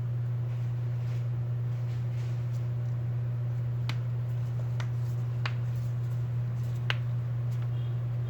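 A steady low electrical hum throughout, with four sharp clicks in the second half, the last the loudest: small clicks and taps from handling a Samsung Galaxy Note 4 while its buttons are tested.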